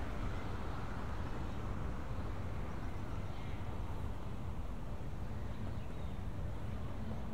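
Steady street ambience: a low, even rumble of city traffic.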